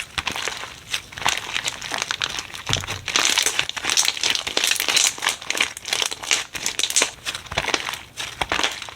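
Slime being squeezed and pressed by hand, giving dense, irregular runs of sharp little clicks and pops.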